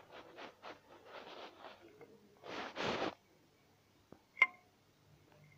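A toy 007 air pistol's mechanism being worked by hand: a run of short rustling scrapes from handling, then a faint click and a sharp, ringing metallic click about four and a half seconds in.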